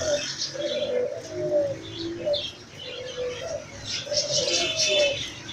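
Pigeons cooing, a run of short low notes one after another, with higher chirps from other birds mixed in.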